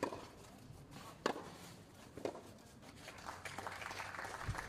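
Tennis rally on a clay court: sharp pops of the ball off the strings, three about a second apart, with the players' footsteps scuffing on the clay, heaviest near the end.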